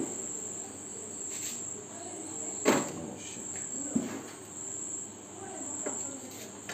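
Crickets chirring steadily in a continuous high drone, with two short knocks about a second apart near the middle.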